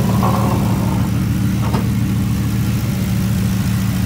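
GM Performance LS 6.2 V8 crate engine idling steadily.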